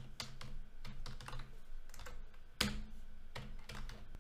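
Typing on a computer keyboard: irregular keystroke clicks, with one louder key strike about two and a half seconds in.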